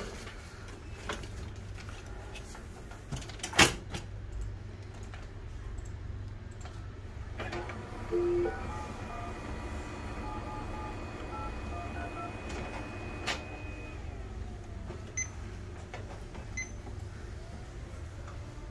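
Oki MB562 multifunction printer initialising: over a low steady hum, a sharp knock, then for about six seconds a run of short stepped motor tones at changing pitches with a thin high whine, ending in a click, followed by a few faint ticks.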